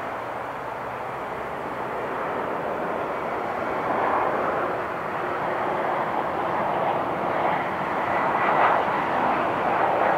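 Airliner engine noise: a steady rushing that grows gradually louder as the aircraft passes, with a faint high whine near the end.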